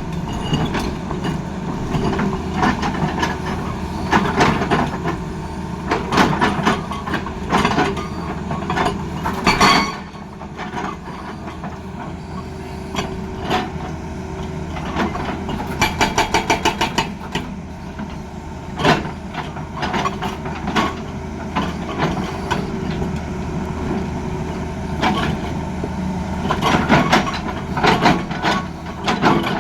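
Tata Hitachi excavator's diesel engine running, with irregular metallic clanks and knocks. The sound drops and dulls suddenly about ten seconds in. Around the middle comes a brief burst of rapid hammering, about ten strikes a second, from the hydraulic breaker.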